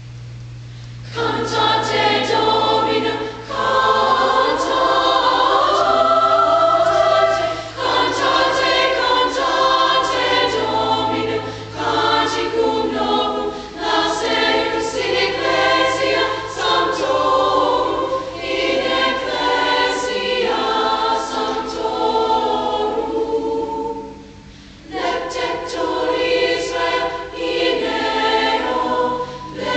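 Choir of teenage girls' voices singing together in several parts, starting about a second in, with a short break in the singing about five seconds before the end.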